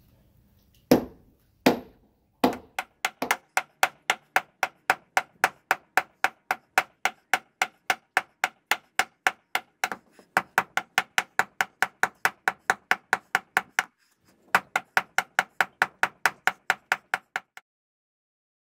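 Hammer blows on the top of a pressure-treated wooden dock piling, packing it down into the lake-bottom mud: two single blows, then a long steady run of strikes about three a second, a short break about two-thirds through, and a last run that stops near the end.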